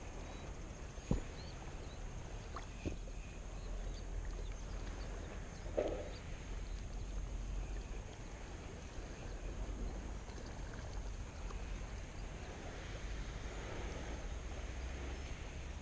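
Outdoor ambience with a steady low rumble of wind on the microphone, broken by a few sharp clicks in the first three seconds and a short knock about six seconds in.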